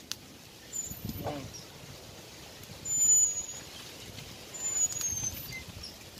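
A few short, high bird chirps, the loudest about three seconds in and a slightly falling pair near five seconds, over a faint steady outdoor hiss. There is a faint distant voice about a second in.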